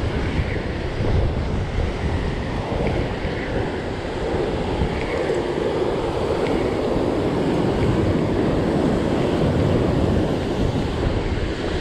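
Surf breaking and washing over the rocks, with wind buffeting the microphone.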